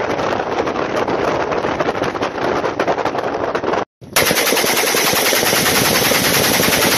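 Wind buffeting the microphone on a moving boat, then, after a cut about four seconds in, a rifle fired in a rapid, continuous string of shots, very loud and evenly spaced.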